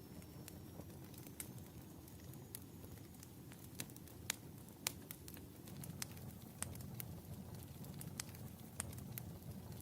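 Wood fire burning in a fireplace: a steady low rush of flames with irregular sharp crackles and pops, the loudest pops coming about four to five seconds in.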